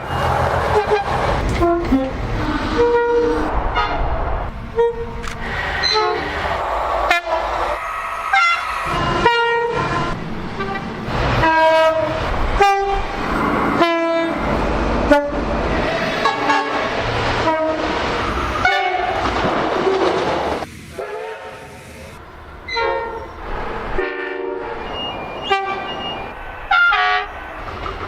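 Train horns sounding a long series of short blasts at changing pitches, including two-tone horns, over the low rumble of passing trains.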